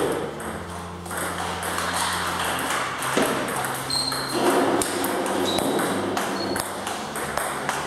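Table tennis rally: the plastic ball clicking sharply off the bats, one of them faced with short-pimpled rubber, and bouncing on the table, a string of irregularly spaced clicks.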